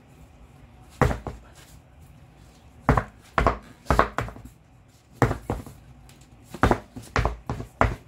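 A wheel with its tire bounced on the floor: a series of heavy thuds, about ten at irregular spacing, starting about a second in. This pushes the loose tire bead out against the rim so the tire seals enough to take air.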